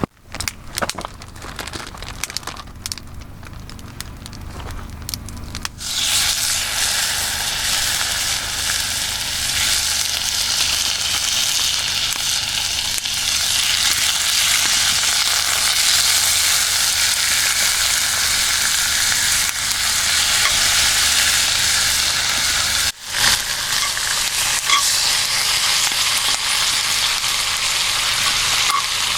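Food sizzling and frying in hot oil in a pan, starting suddenly about six seconds in and then hissing steadily and loudly. Before that there are only faint clicks and knocks.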